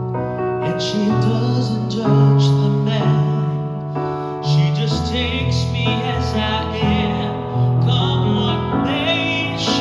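Music from a keyboard playing sustained chords over a low bass line, with a voice singing with vibrato over it.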